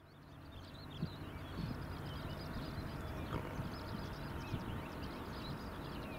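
Many small birds chirping over the steady low rumble of a distant Boeing 777-300ER's GE90 jet engines on final approach. The sound fades in over the first second.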